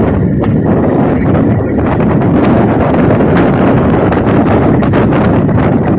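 Motorboat running steadily across choppy sea, its engine drone mixed with rushing water and wind, with scattered knocks of the hull meeting waves.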